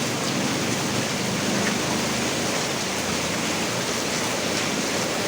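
Heavy rain pouring down in a steady, even hiss with no let-up.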